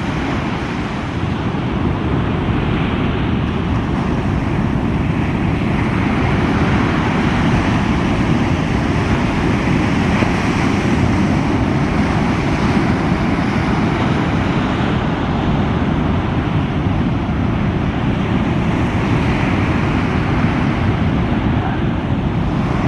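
Breaking surf washing in, a steady noise with wind rumbling on the microphone.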